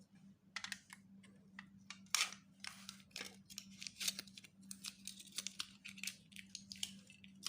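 Sealed plastic packaging being cut and torn open by hand: an irregular run of short crackling, rustling snips and rips, over a faint steady electrical hum.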